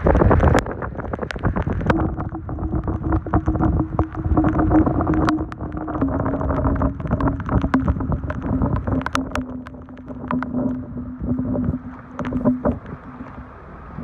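Wind buffeting the microphone from a moving car, crackling and gusting unevenly. Under it the car's engine hums steadily, dropping slightly in pitch about six seconds in.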